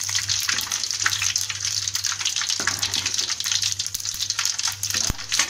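Hot cooking oil in a kadai sizzling steadily, with mustard seeds and fenugreek seeds crackling and popping in it as they fry.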